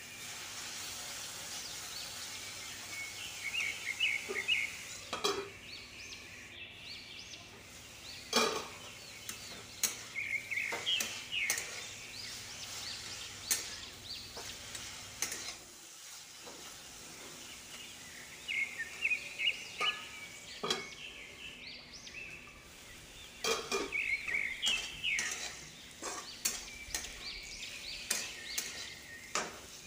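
Sliced vegetables sizzling in oil in a kadai, stirred and tossed with a metal spatula that clicks and scrapes against the pan. Bird chirps come in short bursts several times in the background.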